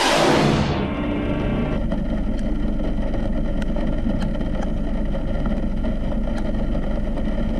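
Steady road noise of a moving vehicle, an even rumble and hiss with a few faint clicks. A loud rush of noise at the very start dies away within about a second, and a horn's tone fades out in the first two seconds.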